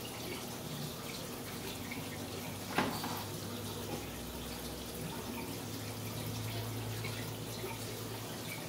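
Aquarium water trickling and dripping steadily over a low hum, with one sharp click about three seconds in.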